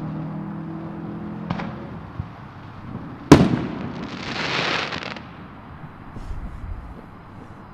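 Aerial firework shell bursting at a distance: one sharp bang about three seconds in, followed by a hissing crackle lasting about a second and a half. A fainter pop comes earlier and faint pops near the end.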